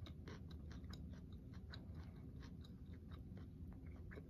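Quiet close-mouthed chewing of a bitten pepperoncini pepper: a run of soft, irregular wet mouth clicks.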